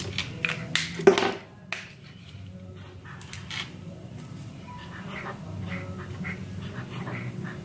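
Felt-tip marker squeaking and scratching on paper in quick drawing strokes, with a louder burst about a second in.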